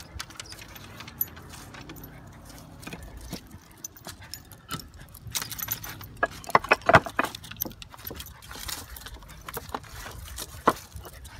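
A dog's metal collar tag and ring jingling and clinking as it walks and clambers over boards and rocks, with scattered clicks of its paws; the jingling is busiest around the middle and comes once more near the end.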